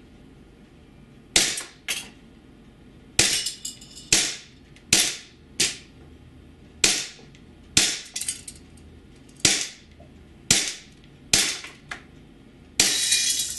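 WE G18C Gen4 gas blowback airsoft pistol firing aluminum BBs one shot at a time: about thirteen sharp pops, irregularly spaced, each with the slide cycling. Near the end comes a longer continuous burst of noise lasting under a second.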